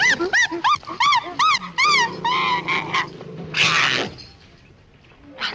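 A dog yelping in a quick run of high yips that rise and fall in pitch, about three a second, ending with one harsher yelp about four seconds in.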